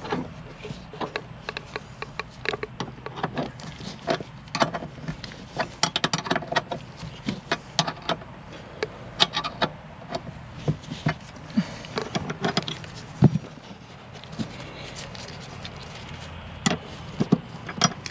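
Box-end wrench clinking on a steel seat-bracket bolt as it is turned by hand: irregular metallic clicks and taps, with small clusters of them, as the seat is bolted down.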